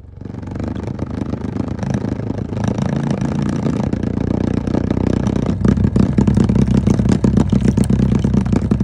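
Low, steady tone from a tone generator played loud through an amplifier speaker, with the plastic bowl of water resting on it buzzing and rattling as the water is shaken. It starts suddenly and gets louder about halfway through as the volume is turned up.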